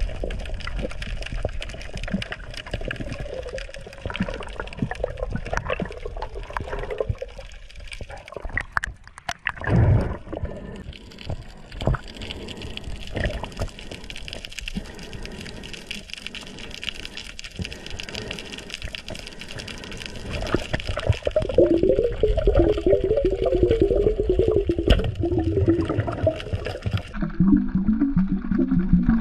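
Underwater ambience through a submerged camera: a steady rush of water with crackling clicks and snaps. A wavering low hum comes in over the last several seconds.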